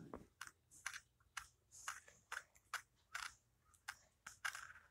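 Faint, irregular crunchy knocks and rustles, about two or three a second: a camcorder's microphone being jostled as the camera tumbles on a bouncing trampoline, heard through the camcorder's small playback speaker.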